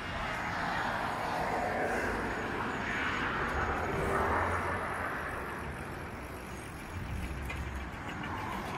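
Street traffic heard from a moving bicycle: passing cars whose tyre and engine noise swells over the first few seconds and fades, with another vehicle coming up near the end.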